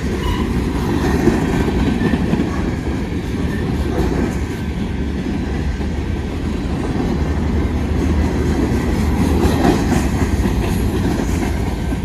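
Empty open-top coal hopper cars of a freight train rolling past, their steel wheels rumbling and clattering steadily over the rails.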